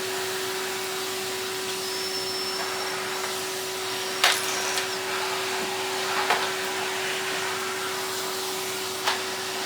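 Vacuum cleaner running steadily with a constant motor hum, with about three sharp clicks as something knocks through it.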